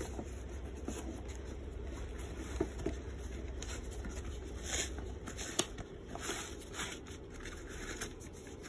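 A Cordura nylon bottle pouch being handled and turned over: soft fabric rustles and scrapes with a few light knocks, more of them in the second half.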